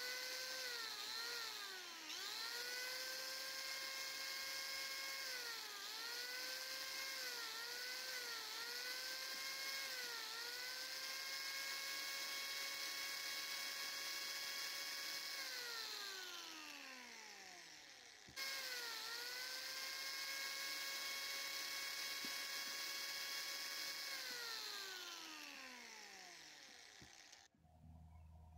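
Electric hand grinder running with a high whine that dips in pitch each time it bites into the wood, smoothing the sharp corners of the carving. It winds down, is suddenly back at full speed, and winds down again near the end.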